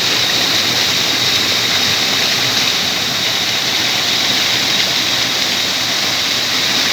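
Waterfall's water rushing, a steady, even noise, with a thin steady high-pitched tone above it.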